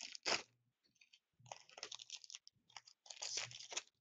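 Trading card packs and cards being handled: plastic wrappers crinkling and cards rustling in the hands, in three crackly bursts, the last near the end.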